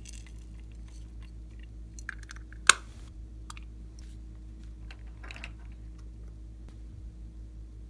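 Small plastic pieces and polymer clay slices being handled, giving scattered light ticks and clicks with one sharp plastic click a little under three seconds in, over a steady low electrical hum.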